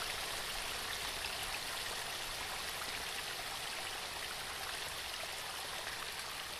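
Small waterfall cascading over rocks: a steady, even rush of falling water.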